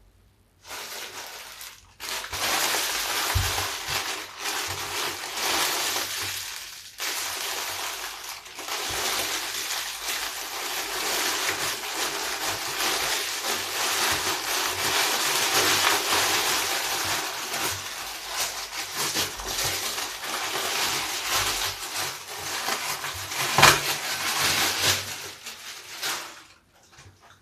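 A large bath sponge, soaped with scraps of soap, being lathered and squeezed by hand: wet, foamy squeezing that pauses briefly about two and seven seconds in, with one louder squeeze near the end.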